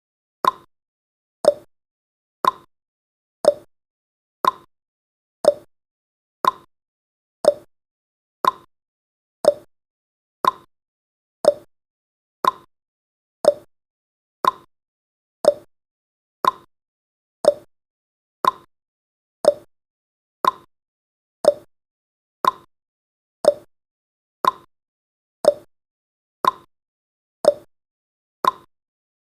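Countdown timer's ticking sound effect: a short, sharp tick exactly once a second, steady and evenly spaced.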